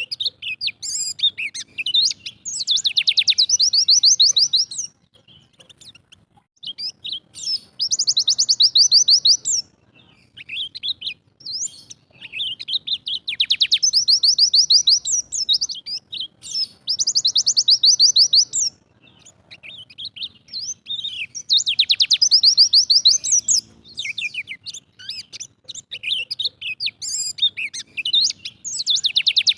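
Pleci dakun Bali white-eye singing its fast 'tembakan' song: about six bursts of rapid, high trilling notes, each a couple of seconds long and spaced a few seconds apart, with softer scattered chirps between.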